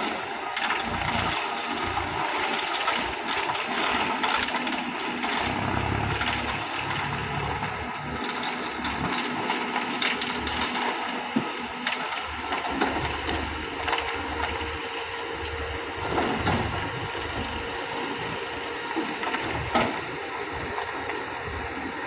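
Diesel construction machinery running, a self-loading concrete mixer and a backhoe loader: a steady noisy engine rumble with frequent mechanical clanks and rattles.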